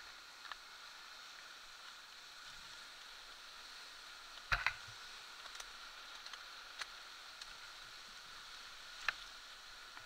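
Mountain bike riding over a rocky dirt trail, picked up by a camera mounted on the bike: a steady hiss with scattered sharp knocks and rattles as the bike hits rocks, the loudest a quick double knock about halfway through.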